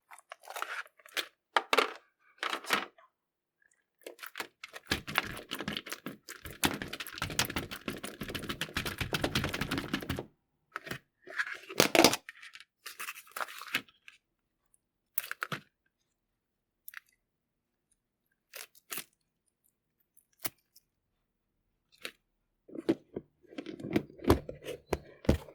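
Slime being squeezed, stretched and poked close to the microphone: irregular crackling, clicking and snapping pops, with a dense run of crackling about five to ten seconds in and softer, deeper squelches near the end.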